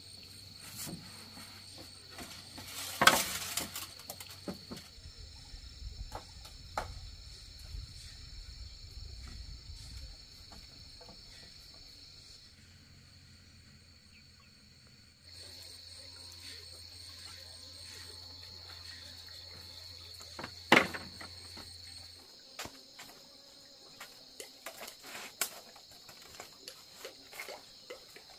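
Insects chirring steadily in the background, with a few sharp knocks and clicks from handwork, the loudest about three seconds in and about twenty-one seconds in, and lighter taps near the end.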